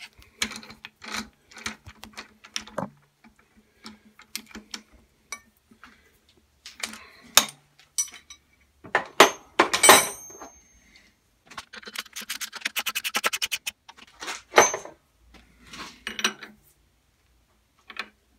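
Metal clinks and clanks as a bar is handled in a steel lathe chuck and a wrench is fitted to it, with a rapid run of clicks lasting about a second and a half around twelve seconds in.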